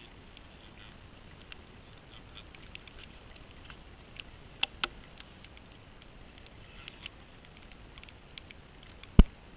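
Ice-fishing rod and reel being handled by hand: scattered faint clicks and taps, two sharper clicks about halfway through and a single loud knock near the end.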